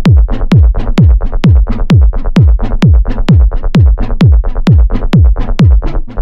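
Electronic techno/tech-house music with a steady four-on-the-floor kick drum, about two kicks a second, each dropping in pitch, and short hi-hat ticks on the offbeats.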